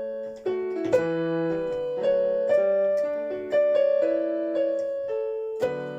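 Piano playing a short closing phrase of single notes over held chords, ending on a final chord struck near the end that rings on.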